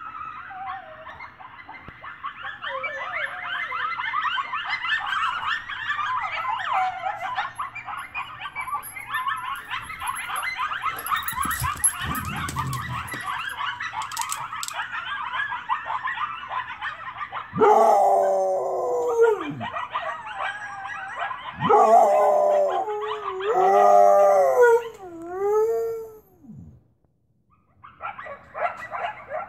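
A coyote pack yipping and howling in a dense, high, wavering chorus. About two-thirds of the way through, a husky breaks in with four or five loud, long howls that slide down in pitch, and the coyote chorus stops. Brief yipping starts again near the end.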